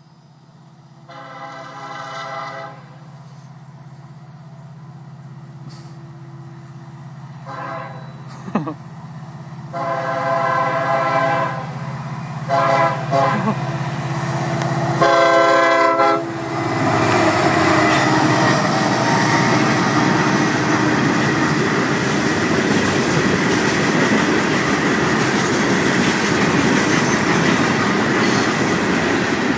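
Florida East Coast Railway diesel freight locomotives sounding their air horn in five blasts, long and short, as they approach a grade crossing, over a low engine hum that grows louder. From about 16 seconds in, the train passes close by: locomotives and loaded freight cars rumbling and clattering steadily over the rails.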